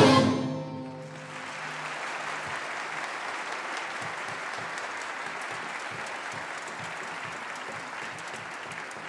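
The last chord of the tar and orchestra dies away within the first second, followed by steady audience applause.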